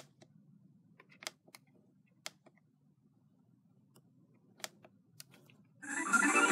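Soft plastic clicks of the Eton Elite Executive radio's keypad buttons, pressed several times at uneven intervals while the FM stereo/mono setting is switched. Near the end the radio's speaker comes on with broadcast sound.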